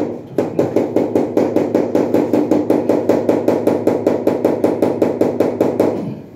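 Rapid, even tapping on a large wall tile to bed it into the adhesive, dull knocks at about seven a second that stop near the end.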